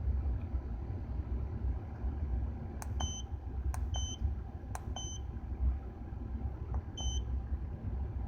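1997 Acura Integra's B18B1 engine running with a steady low rumble, an engine bad enough that its owner doesn't want to keep it running. Over it come four short high electronic beeps, the first three each just after a sharp click, like the buttons of a handheld code reader being pressed.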